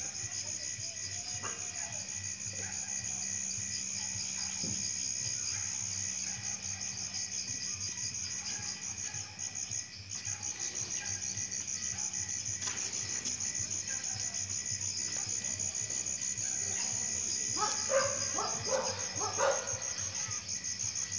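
Night insects trilling in a rapid, steady pulse that breaks off briefly about halfway through. Near the end come a few short, soft sounds.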